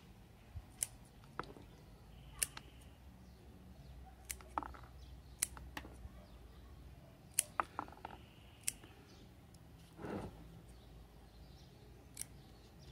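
Small green-handled scissors snipping the leaves off a young Portulacaria stem one by one, for a defoliation. About a dozen sharp snips come at irregular intervals, with a short muffled noise about ten seconds in.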